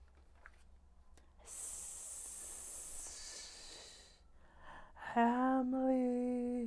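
A person making a long drawn-out 'hssss' hiss with the mouth, voicing a creature's hiss. It starts about a second and a half in and lasts about two and a half seconds. About five seconds in comes a louder, long held vocal note at a steady pitch, which is the loudest sound here.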